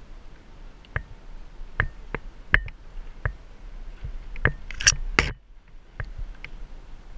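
Climbing and rigging hardware clicking and knocking as a rigging block and rope are handled against a palm trunk: a string of sharp clicks, with a louder rush of noise lasting about half a second about five seconds in.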